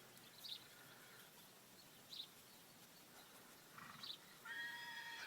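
A few faint short bird chirps, then near the end a horse starts to whinny, a steady high call that carries on past the end.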